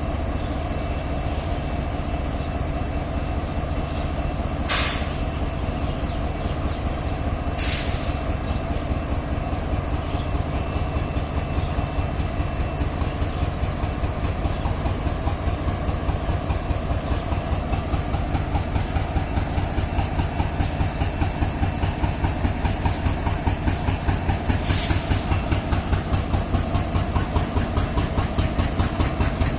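WDG4G diesel locomotive's GE GEVO-12 engine idling with a rapid, even pulsing beat that grows more pronounced in the second half; the uploader calls the idling sound weird. Three short hisses of air break through, two near the start and one near the end.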